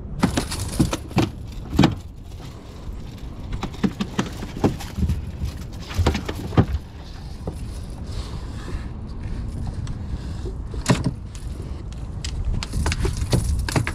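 A boat's engine runs as a steady low rumble while it trolls under way. Irregular sharp clicks and knocks, the loudest sounds, come through it.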